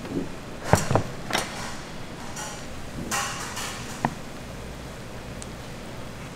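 Several sharp knocks and clacks in the first second and a half, a short scraping rustle about three seconds in, and a single ringing clink about four seconds in, over a steady low hum.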